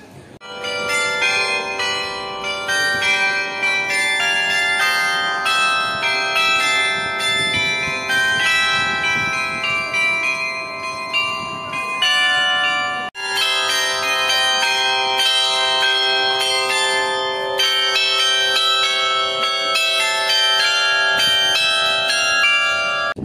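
Carillon of tuned bells on a building facade playing a tune, many notes ringing on over one another, with a sudden break about 13 seconds in.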